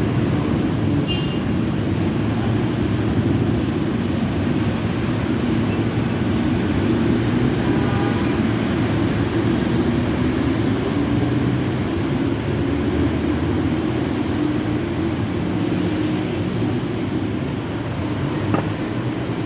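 Diesel-hauled passenger train rolling past at a level crossing: a steady rumble of wheels and carriages on the rails, with a faint high whine in the middle stretch.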